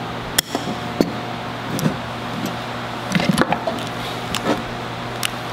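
Locking pliers clamped onto the control box's metal strap and the box handled on a workbench: scattered sharp clicks and taps, with a quick cluster about three seconds in. Under them runs a steady low hum.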